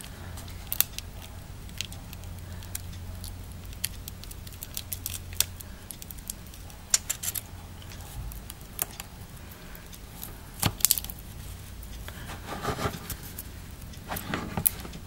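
Scattered small clicks and scrapes of handling an iPhone 4 as its battery is pulled by the tab off the double-sided tape that holds it down, with a few short scraping patches near the end.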